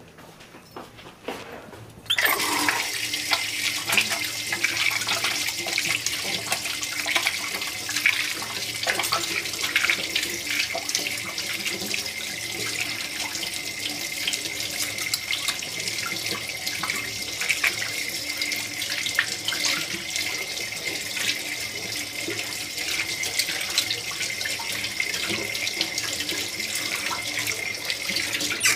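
Kitchen tap running into a sink with splashing. It comes on abruptly about two seconds in, runs steadily and stops near the end.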